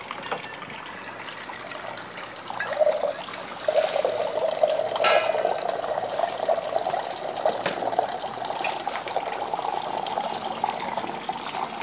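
A stream of water pouring into a stainless steel lota (round water pot), filling it. From about three seconds in, the splashing takes on a tone that rises slowly as the pot fills.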